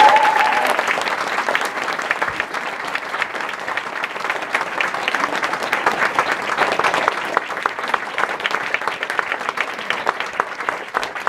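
Audience applauding, many hands clapping at once. The applause is loudest at first, eases a little over the first few seconds, then holds steady.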